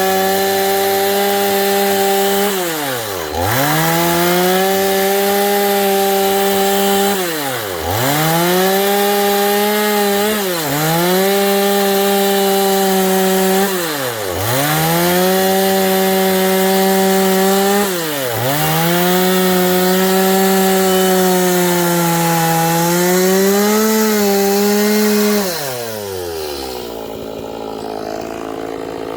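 Chainsaw running near full throttle as it cuts lengthwise through a cedar log, its engine pitch dipping sharply and recovering five times. About four seconds before the end it drops to a lower, quieter run.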